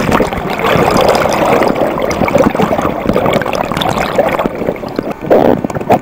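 Seawater gurgling and sloshing around a camera held just under the surface, full of crackling bubbles, heard through the submerged microphone. A louder splash comes about five seconds in.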